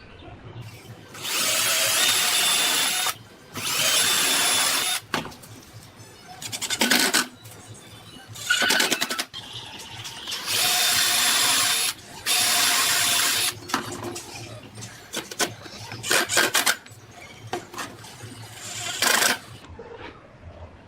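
Angle grinder running in repeated bursts of a second or two, each with a steady high whine, with shorter bursts between.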